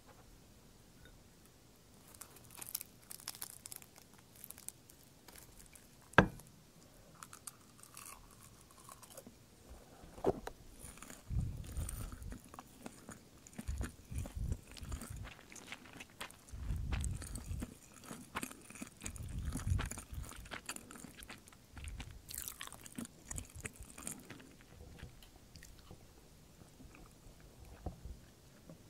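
Close-miked crinkling of crisp roasted laver (gim) sheets wrapped around rice, then crunchy chewing of the seaweed-and-rice mouthful, very crisp, like dry leaves. A single sharp tap about six seconds in is the loudest sound.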